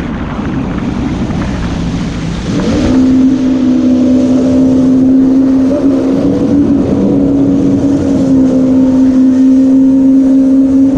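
Yamaha VX110 personal watercraft engine under way: its note sags lower for a couple of seconds, then about two and a half seconds in picks up quickly and holds a steady high-speed drone.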